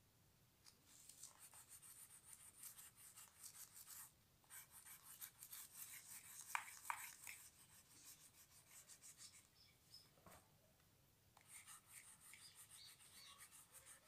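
Light green crayon rubbed back and forth on paper in quick, faint scratchy strokes, colouring in an area, with a couple of louder strokes midway. The strokes stop briefly about four seconds in and again for over a second near ten seconds in.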